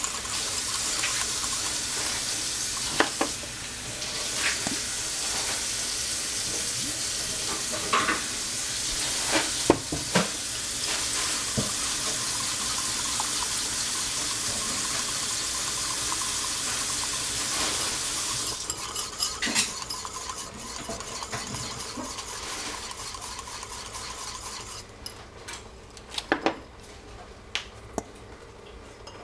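Mayonnaise being whisked in a bowl: a steady fast swishing with scattered taps against the bowl. After about eighteen seconds it gives way to slower, separate clicks and scrapes, and it grows quieter near the end as the mixing finishes.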